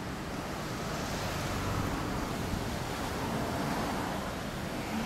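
Wind rushing and buffeting on the microphone, swelling about a second in.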